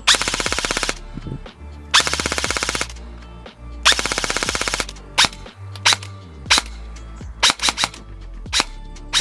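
Evolution Airsoft Reaper XS electric airsoft gun (AEG) firing: three full-auto bursts of about a second each, a fast even rattle of the gearbox cycling, then a string of single semi-auto shots.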